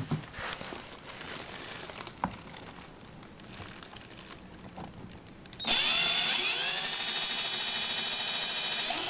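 Cordless drill-driver starting about two-thirds of the way in, its motor whine rising briefly in pitch and then running steadily as it drives a hex-head roofing screw into the plastic of a tool case to make a hole. Before it starts, only quiet handling knocks.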